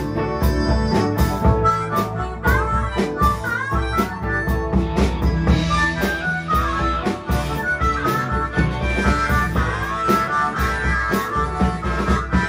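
Live blues band playing: a harmonica plays a lead line with bent, sliding notes over electric guitar, bass and a drum kit keeping a steady beat.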